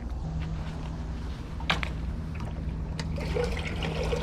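Water trickling and splashing, with a steady low hum underneath and two short sharp clicks.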